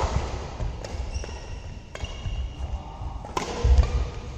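Badminton rally: three sharp racket strikes on the shuttlecock, about a second apart, with players' footfalls thudding on the court between them, heaviest near the end.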